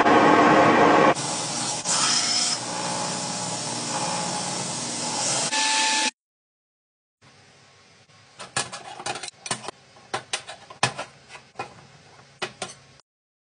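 A steady hissing rush, changing in character about a second in, runs for about six seconds and then stops. After a second of silence comes a run of sharp, light metal clicks and clinks.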